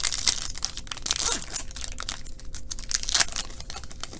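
Foil trading-card pack wrapper crinkling and tearing open, a dense run of crackles, the sharpest about three seconds in.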